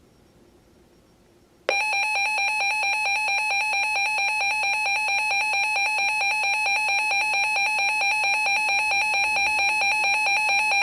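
Weather radio alert tone: a loud, steady electronic alarm tone that starts abruptly about two seconds in and holds for about nine seconds before cutting off. It announces an incoming severe thunderstorm warning broadcast.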